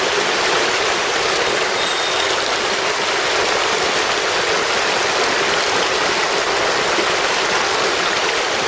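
Mountain stream rushing over rocks in small cascades close by, a steady, loud wash of water.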